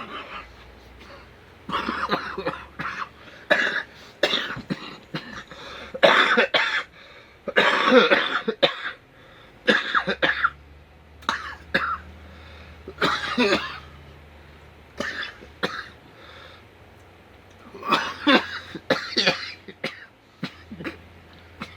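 A man coughing and clearing his throat in repeated irregular fits, set off by the burn of a mouthful of wasabi.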